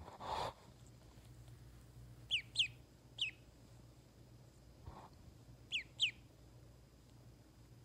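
Duckling peeping: short, high calls that slide downward, three of them about two and a half to three seconds in and a quick pair near six seconds. A short soft rustle comes right at the start.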